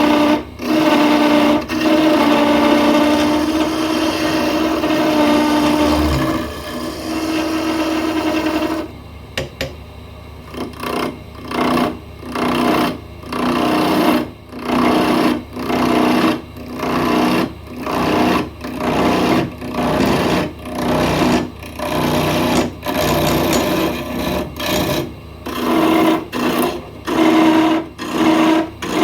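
Wood lathe running with a steady motor hum while a plum-wood pen blank is turned. About a third of the way in the sound turns into a regular pulse, swelling and fading a little more than once a second.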